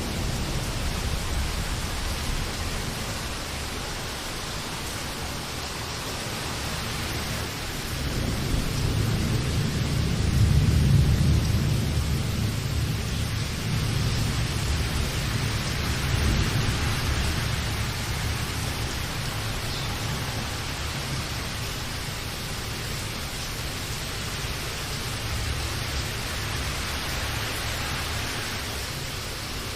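Steady heavy rain with a low rolling rumble of thunder that builds about eight seconds in, peaks a few seconds later and slowly dies away.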